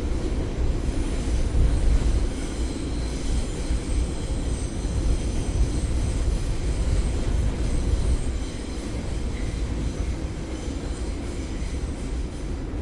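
New York City subway train running, a continuous heavy rumble of wheels on track with faint high-pitched wheel squeal, easing a little about two-thirds of the way through.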